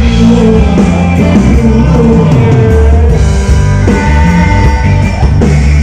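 Live rock band playing loudly: a singer over electric guitars, bass, keyboards and drums.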